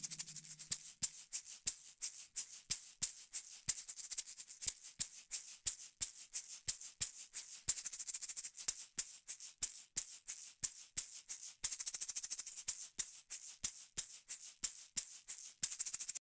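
Unprocessed studio recording of a shaker played in a steady rhythm of about three strokes a second. The same part is heard twice, first as recorded through a Neve 88M interface's transformer-coupled preamp, then as recorded through another audio interface.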